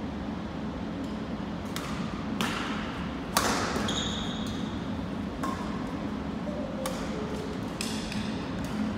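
Badminton rackets striking a shuttlecock in a doubles rally: several sharp hits about a second or two apart, the loudest a little over three seconds in. A brief squeak of a shoe on the wooden gym floor about four seconds in, over a steady low hum.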